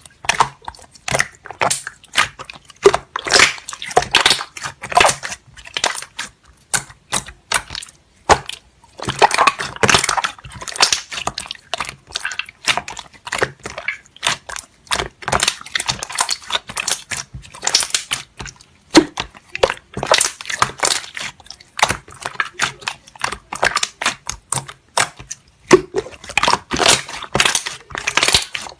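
Slime being squeezed and pressed by hand: a dense, irregular run of small crackles and pops.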